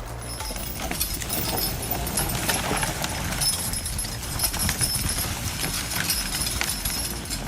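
Hooves of a logging horse clip-clopping as it walks, in uneven knocks.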